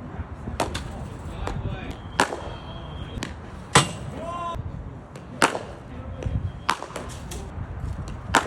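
A willow cricket bat striking a leather ball in the practice nets: a series of sharp cracks about every second and a half, the loudest about four seconds in.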